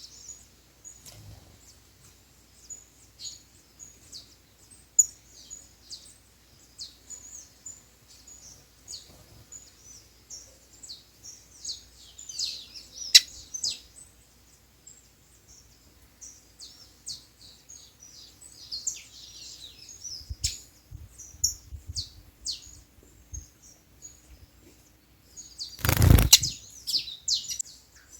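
Small songbirds chirping and calling in quick, overlapping short high notes, busiest around halfway through. A brief loud noise burst cuts in about 26 seconds in.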